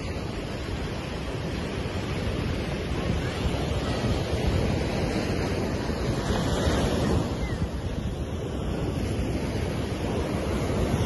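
Steady rush of sea surf on a sandy beach, with wind rumbling on the microphone.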